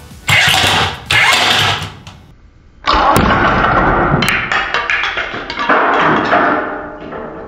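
Combat robot axe weapon, driven by a dirt-bike electric starter motor, firing: two short bursts of motor noise, then a longer run of about four seconds that fades out, with two sharp clicks in it.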